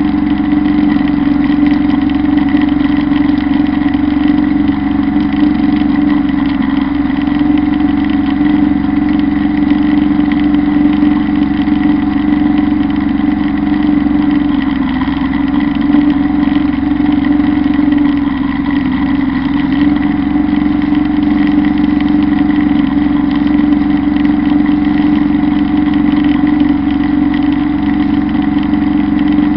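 Kubota Bulltra B1-17 compact tractor's diesel engine running steadily under load, powering a Zanon rotary drum mower cutting tall grass. A loud, even drone that holds the same pitch throughout.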